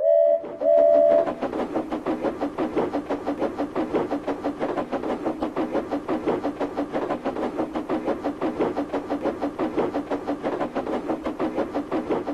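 Steam locomotive whistle sounding twice, a short toot then a longer one, followed by the engine's steady, rapid puffing, about six chuffs a second.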